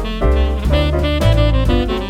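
Background music: an upbeat jazz tune with saxophone lead over bass and drums.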